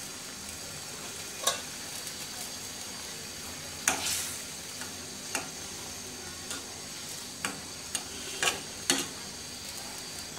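A spiced fish curry sizzling in a pot while a spoon stirs it. The spoon knocks and scrapes against the pot several times over the steady sizzle.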